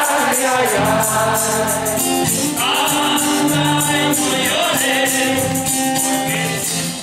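A live band playing: two men singing together into one microphone, backed by acoustic guitar and conga drums.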